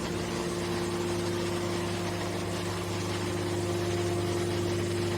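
Hydraulic aluminium can baler's motor and pump running with a steady hum.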